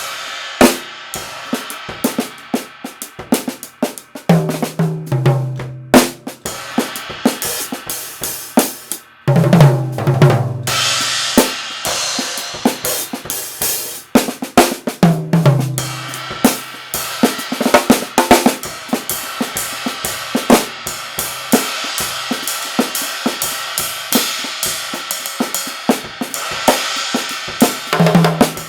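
Drum kit played in a steady groove, with kick, snare and hi-hat under a modified cymbal that rings and washes throughout. Low-pitched drum fills come every few seconds.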